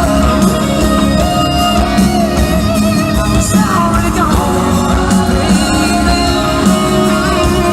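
Live country rock band playing: singing over electric guitars, bass and drums, recorded from the audience at a loud, steady level.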